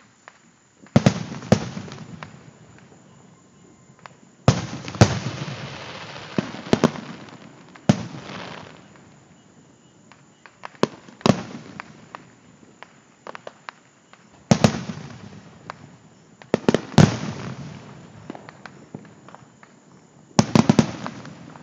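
Aerial firework shells bursting overhead: sharp bangs come in clusters of one to three about every three or four seconds, each trailing off in a rolling echo.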